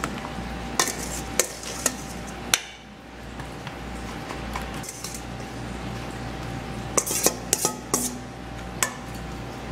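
Metal spoon clinking and scraping against a stainless steel mixing bowl as seasoned potatoes and vegetables are spooned out, in sharp clinks: a few spaced ones in the first three seconds and a quick run of them about seven seconds in.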